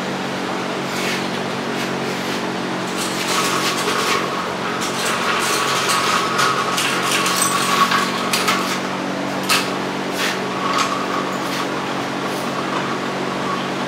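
Jacks and other metal shop gear being moved and handled: irregular clanks, rattles and scraping for several seconds, with a few sharp knocks near the end, over a steady mechanical hum.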